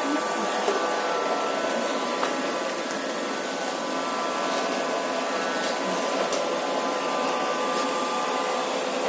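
Robot vacuum cleaner running steadily: an even whir with a steady motor hum, and a few faint clicks.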